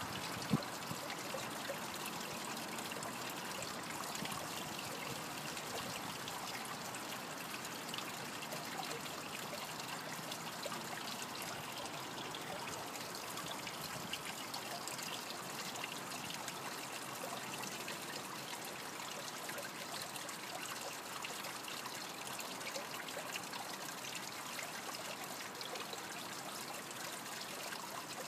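Steady, even hiss of outdoor background noise, unchanging throughout.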